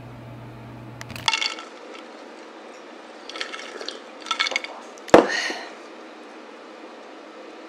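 Ice cubes clinking in a glass of iced coffee: a few short rattles, then a sharp knock with a brief ring as the glass is set down on the table about five seconds in.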